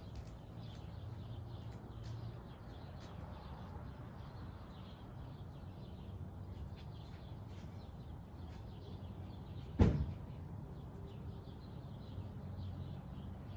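A single sharp bang about ten seconds in, over a steady low hum with faint bird chirps.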